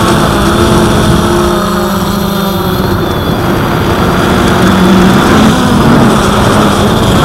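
Strong gusty wind buffeting the microphone with a loud, steady rumble, over the steady, slightly wavering hum of the Cheerson CX-22 quadcopter's motors and propellers.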